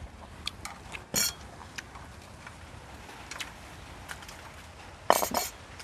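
Chopsticks clicking and clinking against a grill plate and dishes in scattered light taps, with a louder clatter near the end.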